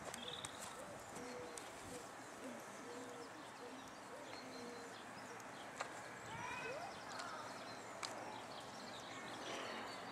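Birds calling: a run of short, low hooting notes over the first few seconds, then higher chirping phrases around the middle and again near the end, with two sharp clicks.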